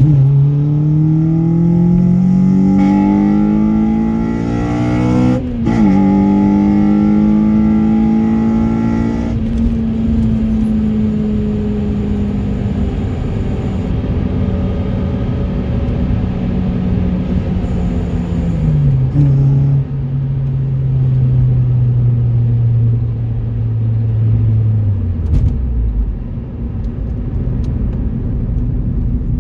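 Honda Civic EP3 Type R's 2.0-litre i-VTEC four-cylinder, breathing through a Tegiwa carbon induction kit, pulling up through the revs under acceleration, with a gear change about five seconds in and a second climb. It then settles to a steady cruise and the revs step down twice, the last time near the end toward a low idle-like tone.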